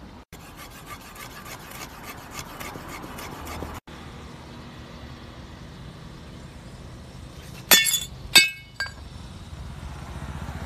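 Metal clatter from a steel folding shovel being handled, a rapid run of small clinks in the first few seconds. About eight seconds in come three sharp, ringing metal clinks in quick succession, the loudest sounds.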